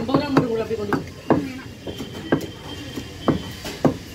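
A curved cleaver chopping fish on a wooden log chopping block: about six sharp chops, roughly one a second.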